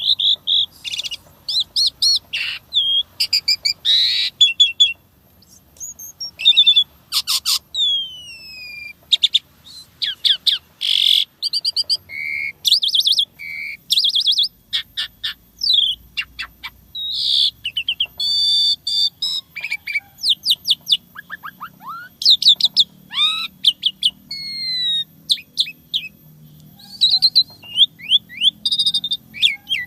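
Jalak suren (pied starling) singing a long, varied song of sharp chirps, fast rattling clicks and downward-sliding whistles with hardly a pause, full of inserted phrases (isian) of unusual sounds.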